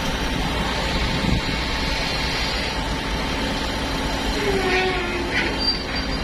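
Steady mechanical running noise with a constant hum and low rumble, like an engine or machine running continuously; a few short higher tones come in during the last couple of seconds.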